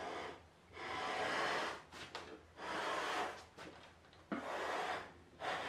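Japanese hand plane (kanna) shaving a square wooden strip: four strokes along the wood, each about a second long, with short pauses between them.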